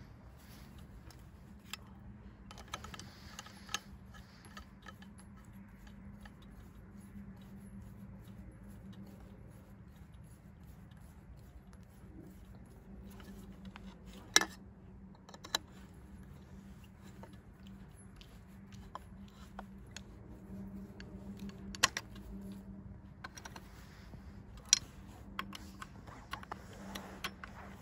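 Screwdriver clicking and scraping against the screws and metal clamp while the blade guard is tightened onto a Stihl FS 560 C-EM brushcutter's gear head, with a few sharp metallic clicks, the loudest about halfway through and two more near the end. A steady low hum runs underneath.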